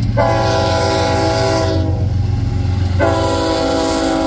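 Union Pacific diesel freight locomotive's air horn sounding two long blasts, a chord of several notes. The first runs for about a second and a half, the second starts about three seconds in and is still held at the end, over the steady low rumble of the passing locomotives.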